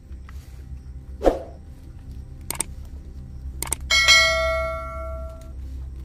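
Subscribe-button overlay sound effect: two sharp clicks followed by a bell chime that rings out and fades over about a second and a half. A dull thump comes about a second in, over a steady low hum.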